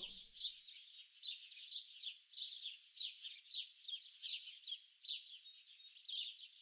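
Songbirds singing, a continuous stream of quick, high-pitched chirps and short trills, several every second.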